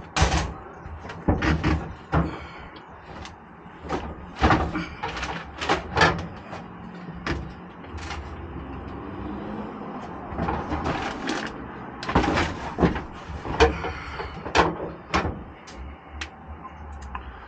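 Irregular knocks, clicks and rattles of hand work on a pickup's truck cap and bed, some in quick runs, over a steady low hum.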